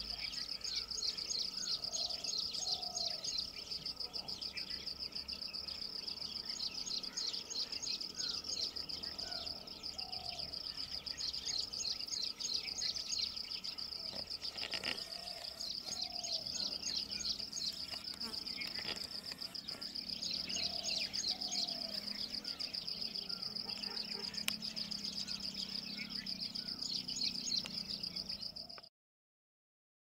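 A steady, high, rapidly pulsing insect trill. A pair of low whistled bird notes repeats about every six seconds, with faint scattered chirps. It all cuts off abruptly near the end.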